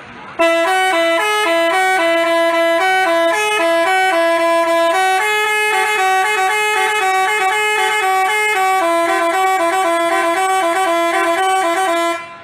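Bus telolet horn playing a tune of quick stepping notes. It starts about half a second in and stops just before the end.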